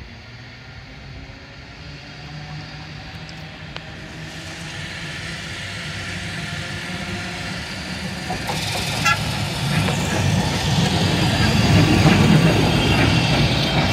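A tram approaching along the track, growing steadily louder as it nears, its low motor hum and wheel-on-rail rumble building, with a few sharp clicks near the end.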